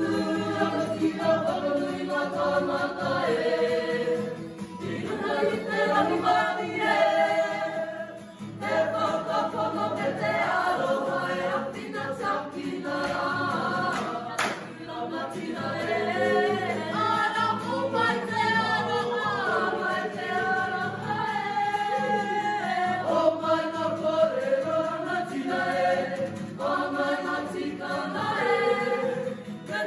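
A mixed group of performers singing a Māori action song (waiata-a-ringa) together in phrases, with short breaths between lines. There is a single sharp click about 14 seconds in.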